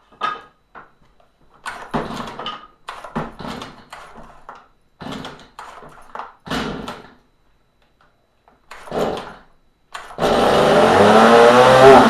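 Stihl MS210C chainsaw being pull-started: several rasping pulls of the recoil starter cord, then about ten seconds in the two-stroke engine fires and keeps running loudly, its speed wavering. The starter has a delay when the handle is pulled, which the owner takes for a sticky recoil spring.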